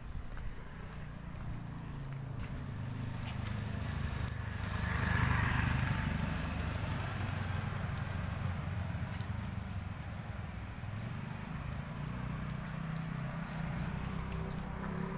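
Street ambience with a steady low rumble, and a motor scooter passing about five seconds in.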